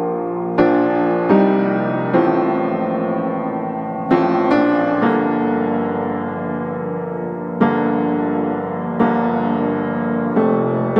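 Background piano music: a slow piece of sustained chords, with new notes struck every second or two and left ringing.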